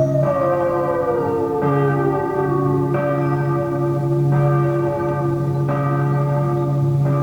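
A church bell tolls slowly, six strikes about a second and a third apart, over a low steady drone. A single sliding tone falls in pitch and fades over the first two seconds.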